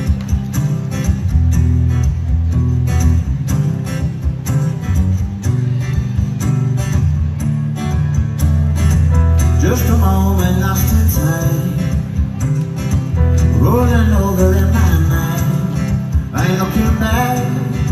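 Live folk-pop band playing an upbeat song: strummed acoustic guitar with banjo, keyboard and bass guitar over a steady rhythm. A melody line that rises and falls comes in after about ten seconds.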